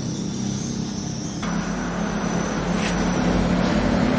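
A vehicle engine running steadily at idle. A steady hiss joins about a second and a half in.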